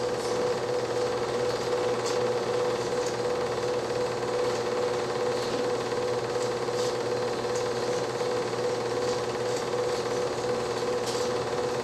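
8mm film projector running: a steady mechanical whir with a constant hum and faint, irregular clicks.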